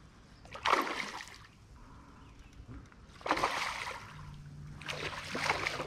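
Three splashes and sloshes of creek water, about two seconds apart, over a quiet trickling stream. A faint low steady hum comes in about four seconds in.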